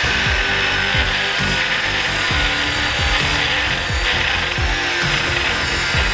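Angle grinder disc cutting into a flat iron bar, a steady hiss with a faint high whine. Background music with a low drum beat about twice a second plays along.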